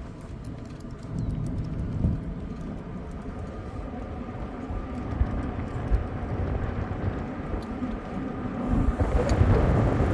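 A car driving, with steady road and tyre rumble heard from inside the cabin. It gets louder near the end.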